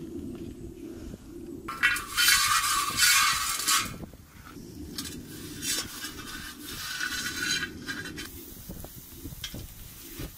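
Outdoor cooking sounds: a loud hiss for about two seconds, then a fainter hiss for about three more, with clinks of utensils against pots and dishes near the end.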